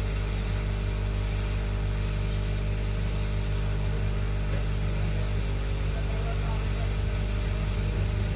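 Hot air rework station blowing steadily while heating an IC off a phone's circuit board, with a steady low hum underneath.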